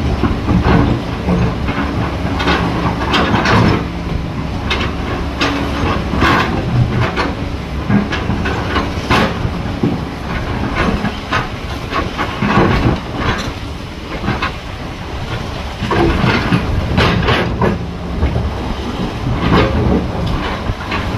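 Heavy excavator working: a diesel engine runs steadily under load while its steel parts knock and clank again and again at irregular intervals.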